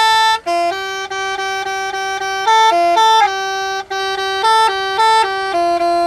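Truck's basuri-style musical air horn, driven by an electronic tune module, playing a melody of held notes that step up and down, with a couple of brief breaks. The tune draws the compressed air down quickly.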